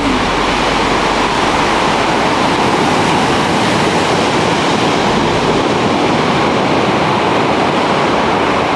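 Ocean surf: a steady, even rush of waves breaking on the beach.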